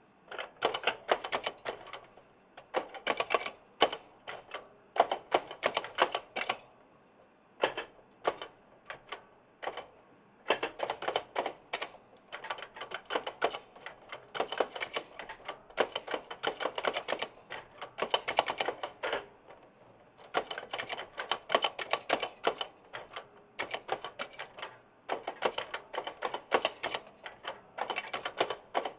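Giant mechanical keyboard with Kailh blue clicky switches being typed on: rapid runs of sharp clicks in bursts, with short pauses between them, the switch springs audibly pinging.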